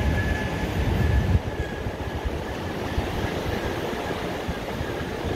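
Wind buffeting the microphone: a steady low rumble that is stronger for the first second or so, then eases slightly.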